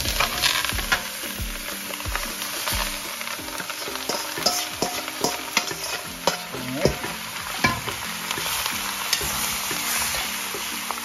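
Seasoned chicken pieces going into hot oil with curry powder browned in it, frying with a steady sizzle. A metal spoon scrapes and knocks against the steel bowl and the pan as the chicken is tipped in and stirred, giving irregular clicks over the sizzle.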